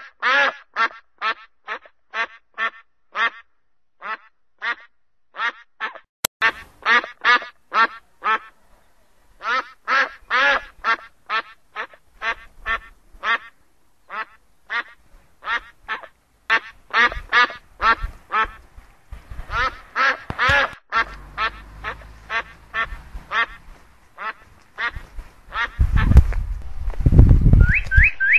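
Duck quacking over and over, a few short calls a second. A low rumble rises under the calls from about two-thirds of the way in, loudest near the end, and short rising chirps come in just before the end.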